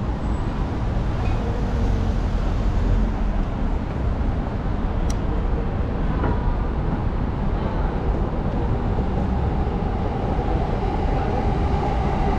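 A train runs on the elevated railway viaduct alongside the street with a steady low rumble. A whining tone comes up near the end as it draws nearer. Street traffic noise lies underneath.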